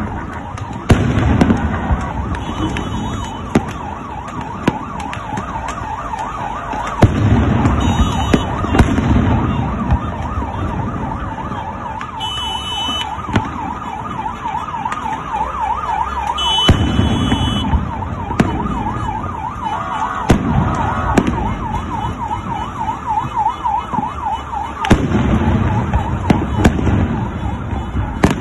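An emergency-vehicle siren wails in a fast warble through the middle stretch, over the noise of a street crowd. Sharp bangs crack out again and again, and heavier booming bursts come a few seconds apart, the loudest about a second in and near the end.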